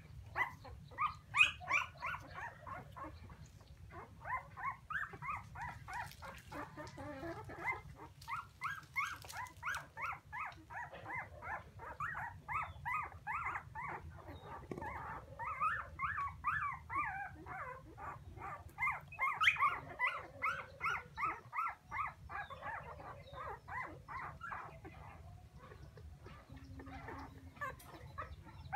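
Young puppies whining and crying in rapid runs of short, high-pitched cries, about four a second, easing off briefly near the end: puppies crying for their mother.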